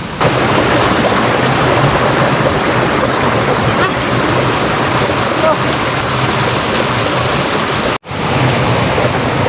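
Steady, loud rushing water, such as a mountain stream or heavy runoff. It breaks off for an instant about eight seconds in and then resumes.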